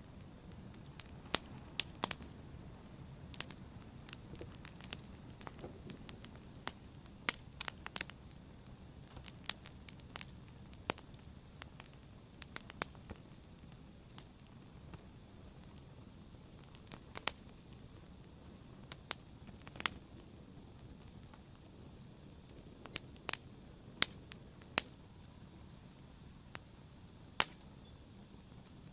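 Wood logs burning in a fireplace: a steady low rumble of flames with sharp, irregular crackles and pops, a few every second or two.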